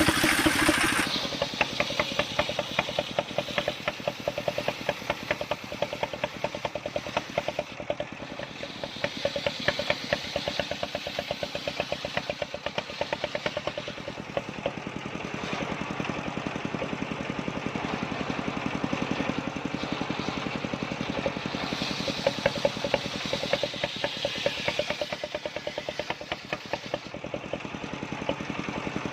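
Engine of a portable circular-saw sawmill running steadily, with a rapid, even, knocking firing beat. A louder broad noise stops about a second in, and the engine runs on alone.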